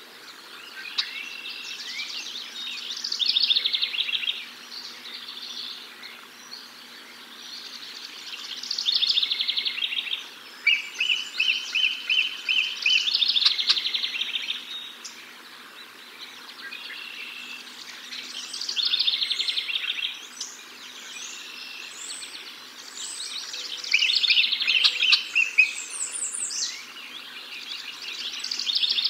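Wild songbirds singing and chirping, a new phrase of quick trilled notes every few seconds.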